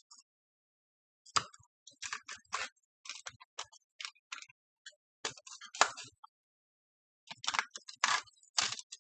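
Irregular clicks, taps and crackles from handling the crash-damaged balsa-and-covering model airplane wing on a workbench, coming in clusters with the loudest about six seconds in.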